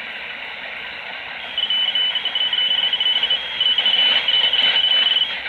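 Radio hiss, then, from about a second and a half in, a thin high tone keyed on and off in short irregular pulses. It sounds like a data transmission, though the listener is only going by his gut.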